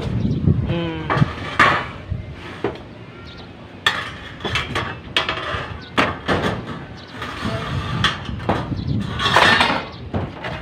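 Irregular clanks, knocks and clicks of metal tools and parts being handled and set down.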